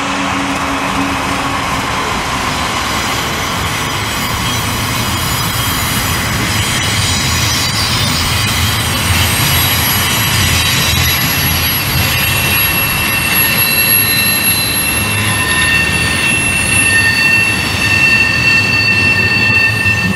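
Freight train wheels squealing on a curve over a steady low rumble, the high squeal tones growing louder through the second half.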